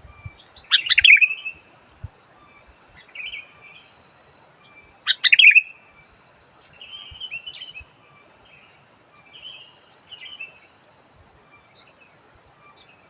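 Sooty-headed bulbul (kutilang) singing. There are two loud bursts of song, about a second in and about five seconds in, with quieter short phrases between and after them.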